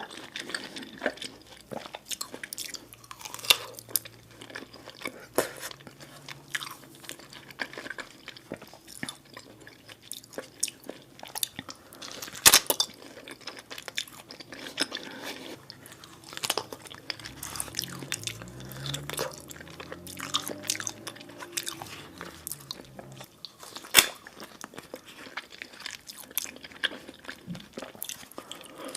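A person chewing and biting food close to the microphone: continual wet mouth clicks and smacks in an irregular run, with a few sharper, louder clicks.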